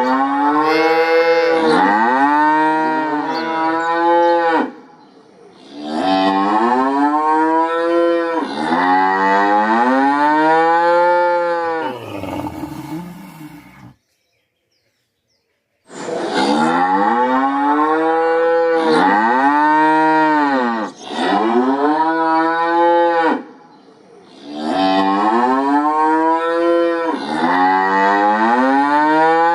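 Calf mooing over and over in long calls that rise and fall in pitch, with a silence of about two seconds near the middle.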